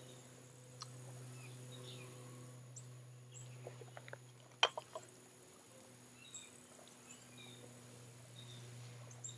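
Quiet outdoor background with a steady faint hum and short, faint high chirps. A few soft clicks and one sharper click about halfway through come from sandwiches being handled over a metal bowl and laid on a grate over coals.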